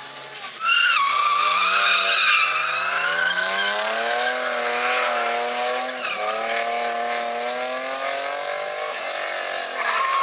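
BMW E36 3 Series race car drifting. The engine comes onto high revs about a second in and stays there, rising and falling with the throttle, while the rear tyres squeal and smoke through the slide.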